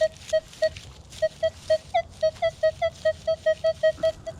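Metal detector target tones: a rapid run of short beeps, about four or five a second, at one steady mid pitch, with a brief pause near one second and a few slightly higher, bending beeps about two seconds in.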